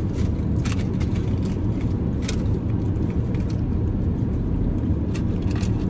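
Steady low rumble of a car heard from inside the cabin, with a few light clicks and rustles scattered through it.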